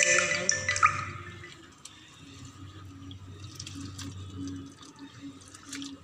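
Wheat grains being swished by hand and a wooden stick in a tub of water: light sloshing and splashing with small clicks. A louder musical tone fades out in the first second.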